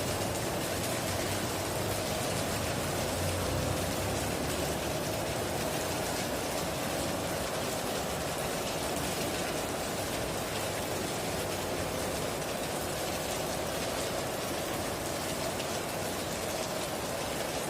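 Heavy rain falling steadily on a tin roof, an even unbroken hiss of drops.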